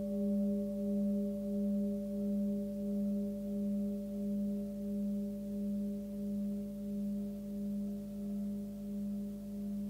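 A 20 cm Tibetan singing bowl ringing out on a fundamental near 202 Hz, with two fainter higher overtones. The tone pulses in a slow wobble about one and a half times a second as it slowly fades.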